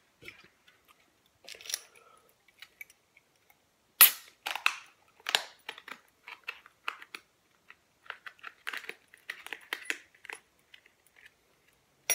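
Sharp clicks, taps and scrapes on an aluminium beer can as a hole is worked into its side for shotgunning, the loudest a single sharp click about four seconds in.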